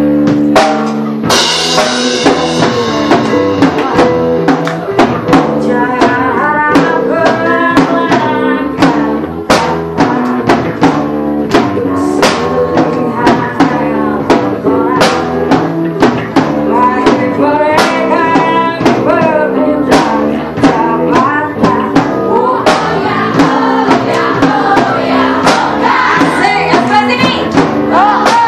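Live band playing loud through a PA: drum kit keeping a steady beat with electric guitar, and a woman singing into a microphone from a few seconds in.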